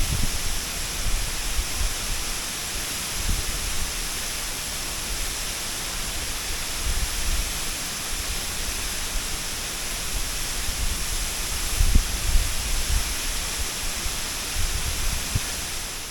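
Waterfall: a steady, full rush of falling water, with uneven low rumbles surging in now and then.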